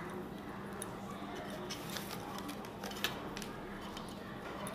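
Soft clicks and light squishing of fingers mixing rice against a steel plate, a few scattered ticks with the sharpest around three seconds in and near the end, over a faint low steady hum.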